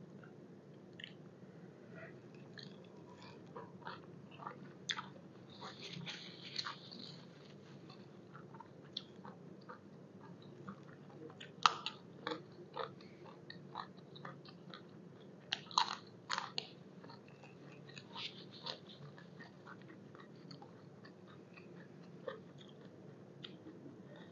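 A person biting and chewing crunchy fresh raw vegetables, with scattered sharp crunches, the loudest about twelve and sixteen seconds in.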